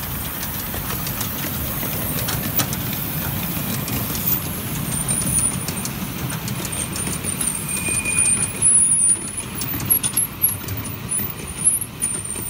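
Miniature steam locomotive (LMS Royal Scot No. 6100 in miniature) hauling a train of passenger carriages past: a steady rumble of wheels on the track with irregular clicks over rail joints and points. From about halfway, a high wavering wheel squeal as the train takes the curve.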